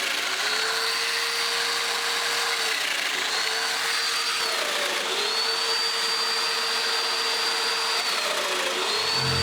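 An electric power tool motor running steadily over a rushing hiss of air. Its pitch sags briefly several times, around 3, 5 and 9 seconds in, as it takes load.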